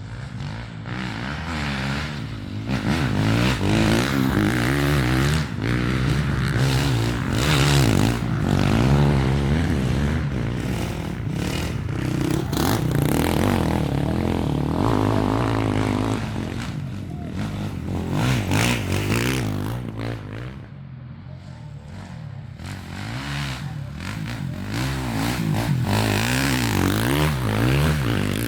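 Off-road racing engines revving hard, pitch rising and falling over and over as the riders work the throttle, with some clatter; the sound fades briefly about twenty seconds in and then builds again.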